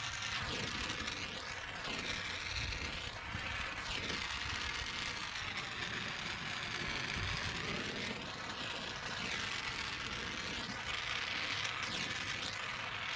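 A handheld gas soldering torch burning, heating the radiator tank seam for soft soldering: a steady rushing hiss whose tone keeps sweeping up and down.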